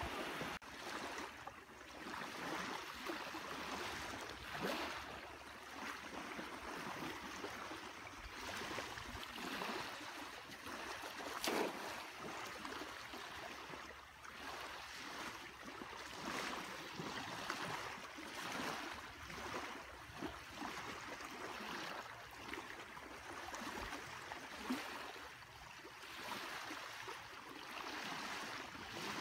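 Small waves washing onto a sandy beach: a steady rushing that swells and fades every few seconds. One sharp click about eleven seconds in.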